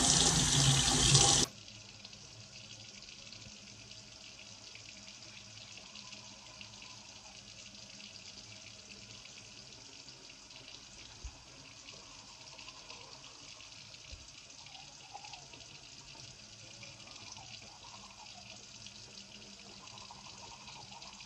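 Bathroom tap running into the sink, cutting off abruptly about a second and a half in. After that only a faint steady hiss remains.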